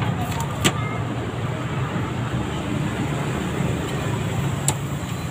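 Steady rumble of passing road traffic. Two sharp clicks cut through it, one just under a second in and one near the end.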